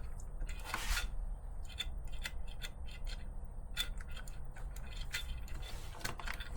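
Light clicks and rubbing of small plastic and metal RC car parts as a suspension arm is worked by hand to find a bind, with a short rasp about a second in. The binding turns out to be in the drive shaft.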